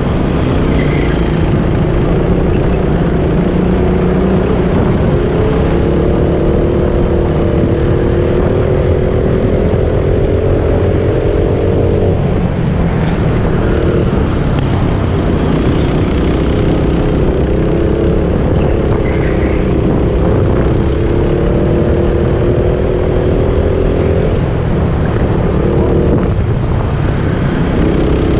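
Go-kart engine heard from on board, running hard at full throttle. Its pitch climbs along the straights and drops off twice, about twelve seconds in and again near the end, as the throttle is lifted for corners.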